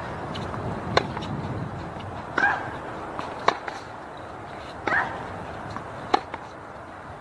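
Tennis rally: racket strikes on the ball alternate about every second and a half. Every other shot comes with a short grunt from the player hitting it.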